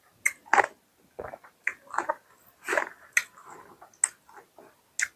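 A person chewing and eating mutton curry with roti: irregular wet chewing and smacking noises, several a second, with sharp clicks among them.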